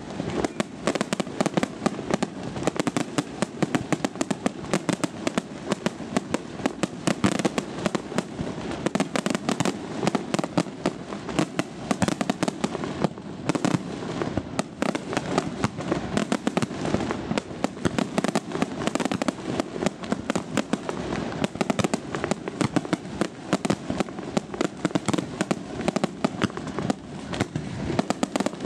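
Aerial firework shells bursting in a dense, unbroken barrage, many sharp bangs a second with no pause.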